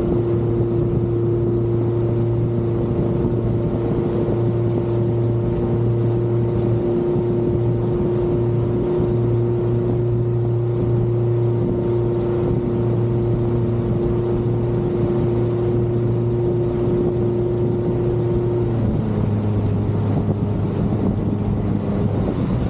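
Outboard motor of an inflatable boat running steadily at speed. About nineteen seconds in, the engine note drops to a lower pitch.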